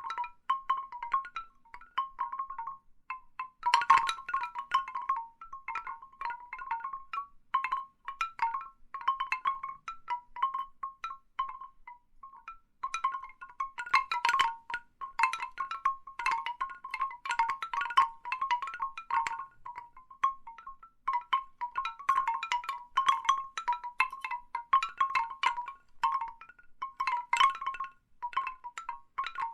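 Large bamboo wind chimes knocking together, many short tuned clacks ringing near the same few pitches in irregular clusters. The strikes come in busier flurries, the loudest about four seconds in, with brief lulls between.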